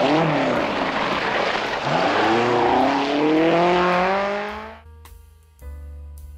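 Alpine A110 rally car driven flat out on a gravel stage: the engine revs rise steadily in pitch over a loud wash of tyre and gravel noise, then the sound fades out about five seconds in. Soft piano music follows near the end.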